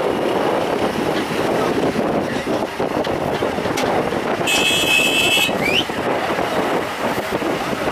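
Heavy diesel machinery running steadily. About halfway through, a high-pitched tone sounds for about a second, followed by a short rising whistle.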